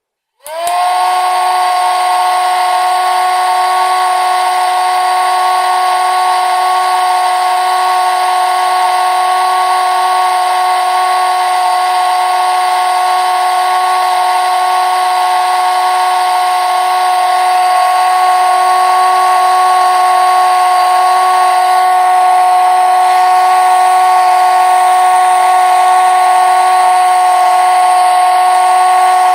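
Small electric fan motor of a homemade jar air cooler switching on about half a second in, spinning up quickly, then running with a steady whine. It gets slightly louder about two-thirds of the way through.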